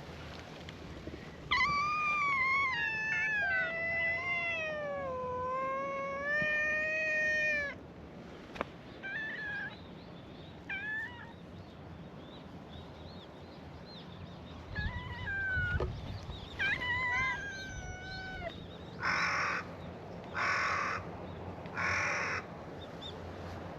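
Stray cats meowing: one long, drawn-out meow that slides down in pitch, then several shorter meows. Near the end come three short harsh calls about a second and a half apart.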